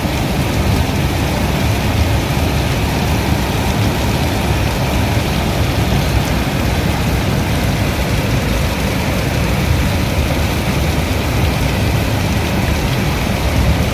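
Heavy rain pouring steadily: a dense, unbroken hiss with a strong low rumble underneath.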